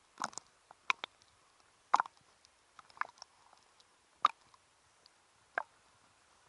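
Small waves slapping and splashing against an action camera's waterproof housing at the sea surface: a string of short, sharp wet clicks and plops at irregular spacing, about one a second.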